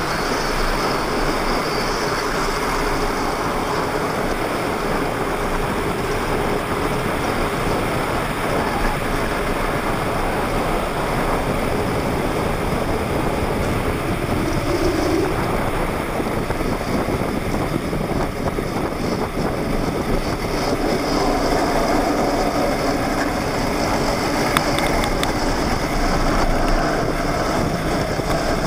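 Hard plastic wheels of a Hot Wheels XL pedal go-kart rolling fast down asphalt, a steady loud rolling rumble mixed with wind rushing over the microphone.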